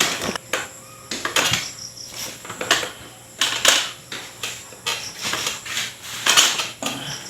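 Hands working on a client's body during a chiropractic adjustment: an irregular series of short taps and rubs, about one or two a second.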